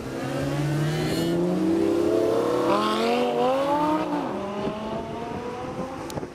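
A supercar engine accelerating hard, its note climbing in pitch for about four seconds, then dropping and fading as the car pulls away.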